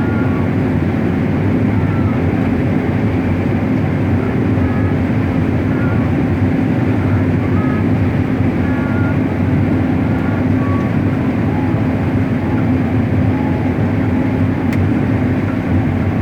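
Combine harvester running steadily while harvesting corn: a constant, unchanging engine and machinery drone.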